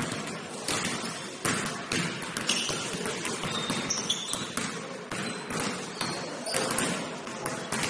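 Basketball bouncing on a gym court during play: irregular thuds, with a few short high squeaks of sneakers on the floor.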